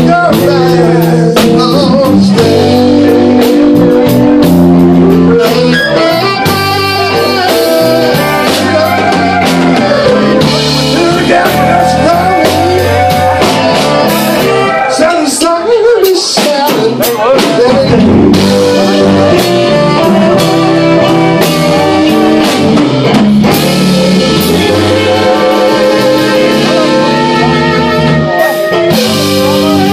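Live blues band jamming a slow blues on electric guitar, saxophone, bass, drums and keyboard.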